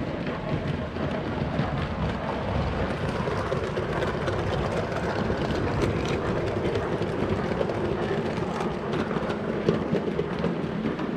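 Wheels of a 7mm-scale (O gauge) model freight train rolling along the track, a steady rumble with frequent light clicks from the rail joints, picked up by a camera riding on one of the wagons.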